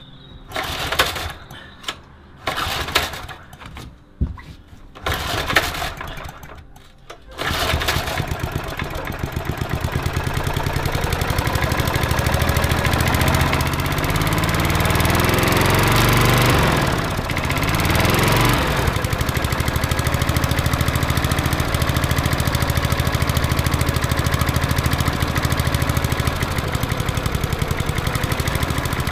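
Old Briggs & Stratton lawnmower engine on a Hayter Harrier 41, running on a swapped-in spare carburettor. It is pulled over in several short attempts, catches about seven seconds in and keeps running. It revs up and back down near the middle, then settles into a steady run.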